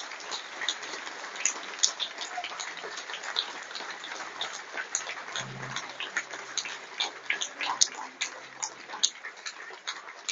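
Audience applauding, many separate claps heard at once.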